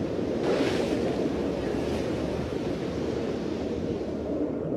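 Sea noise: a steady wash of ocean waves, swelling about half a second in.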